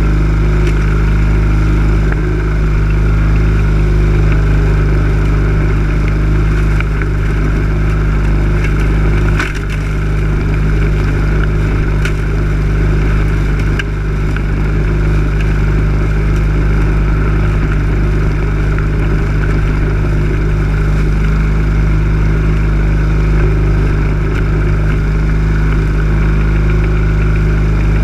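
Lawn mower engine running steadily, heard up close from a camera mounted on the mower, with two brief dips in level about ten and fourteen seconds in.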